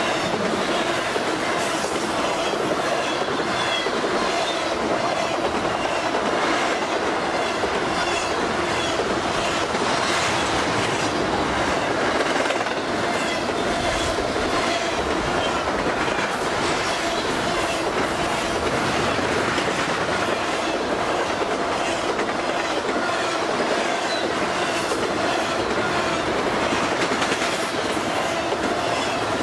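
Intermodal freight train's container and trailer cars rolling past at speed: a steady rumble of steel wheels on rail with a continuous clickety-clack over the rail joints and a steady whine from the wheels.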